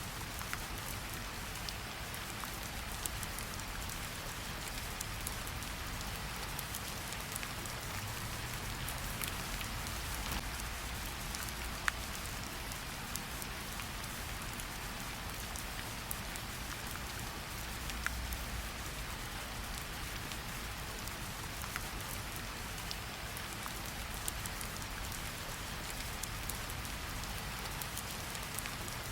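Steady rain falling, an even hiss with scattered sharper drop ticks and a low rumble underneath.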